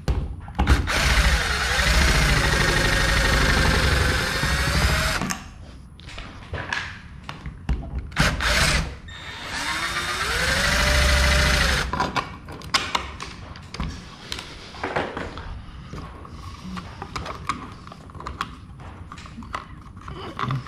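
Cordless drill-driver backing the screws out of a ceiling cover plate, in two runs of a few seconds each, with the motor's pitch rising and falling under the trigger. After the second run come light clicks and handling as the plate is pulled off.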